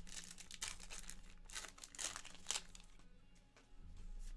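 Plastic wrapper of a 2023 Topps Heritage High Number baseball card pack being torn open and crinkled: a quick run of sharp crackles through the first two and a half seconds, then quieter rustling as the cards are handled.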